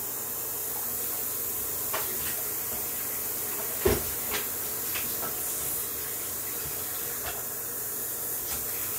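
Hot water running steadily from a sink tap, with scattered light knocks and clinks as the emptied beer-kit extract bag is rinsed out; one louder knock comes about four seconds in.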